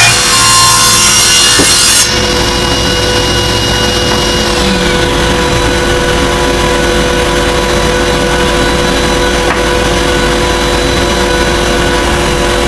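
Delta table saw ripping along the edge of a white-oak bourbon barrel stave, a loud dense cutting noise that stops abruptly about two seconds in as the stave clears the blade. The saw then runs on unloaded with a steady motor and blade hum.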